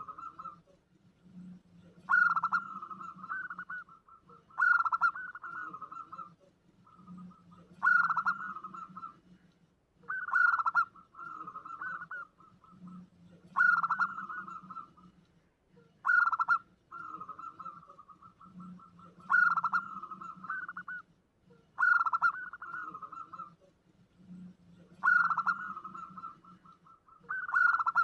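Zebra dove (perkutut) cooing as a lure call, the same phrase repeated about every three seconds. Each phrase opens with a sharp, loud note and runs into a rolling, trilled coo.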